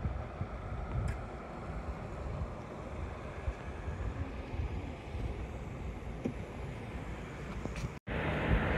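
Wind buffeting the microphone outdoors: a steady noisy hiss with uneven low rumbling gusts. The sound drops out for an instant near the end.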